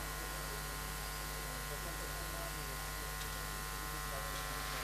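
A steady electrical hum and buzz made of many fixed tones, with faint voices chattering in the background.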